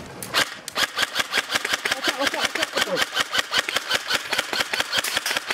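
Airsoft electric gun firing on full auto: a long, steady stream of rapid, evenly spaced clicking shots.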